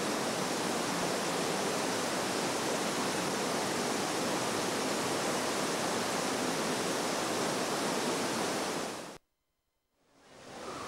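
Steady, loud rushing noise with no clear pitch, on an old camcorder recording. About nine seconds in it cuts off abruptly to about a second of silence at a recording break, then fades back in.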